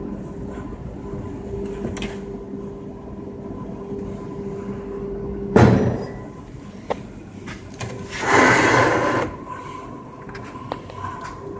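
Homemade disc grinder's 1.5 kW motor running with a steady hum. About five and a half seconds in there is one loud knock, and the hum dies away. Near the end comes a rushing noise lasting about a second, then the hum returns.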